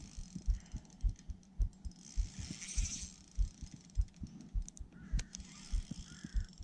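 Handling noise from a spinning rod and reel while playing a strong fish on a loosened drag: a run of soft low thumps, about three a second, with faint fine ticking now and then.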